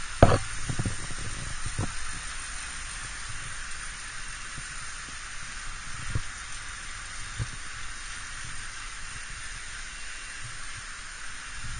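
Panasonic air conditioner running after its repair, a steady airy hiss from the fan with a slight low buzz. A few short low knocks are heard, the loudest just after the start.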